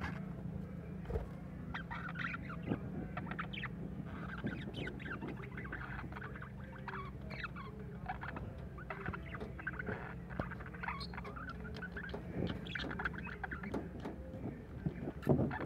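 A small flock of budgerigars chattering and chirping in quick, scratchy bursts, over a steady low hum.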